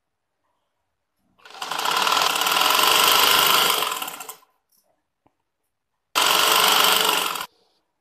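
Domestic sewing machine stitching through cloth in two runs. The first is about three seconds long, building up and then slowing to a stop. The second is a short burst of just over a second near the end, starting and stopping abruptly.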